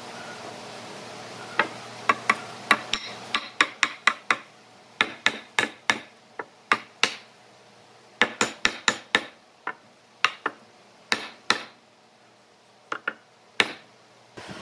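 Wooden mallet tapping a mitred hardwood frame to seat its corner joints: a long series of sharp knocks in quick runs, with a short pause before the last few taps.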